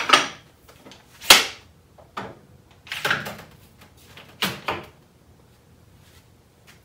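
Metal knocks and scrapes as a Porter-Cable router motor is handled and set down into a metal Jessem Mast-R-Lift II router lift: about five separate clunks and rubs, the sharpest about a second in, with the last one well before the end.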